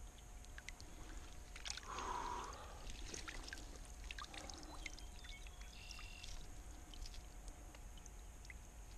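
Brief water swish about two seconds in as a brown trout is let go from the hands into a slow stream, followed by faint scattered clicks and rustles of hands working at a rubber landing net.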